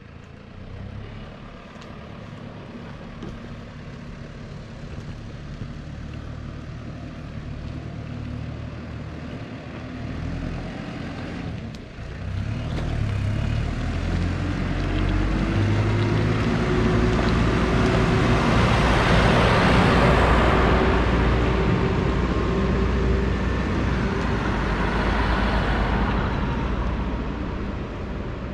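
A small ride-on mower's engine running as it approaches and passes close by. It grows steadily louder, is loudest about two-thirds of the way through, then fades a little.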